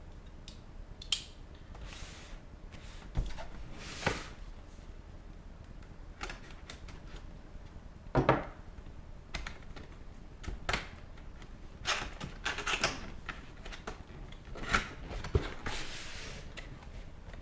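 Cardboard graphics-card box being opened and handled: irregular clicks and taps, with a few short scraping rustles as flaps and packaging slide.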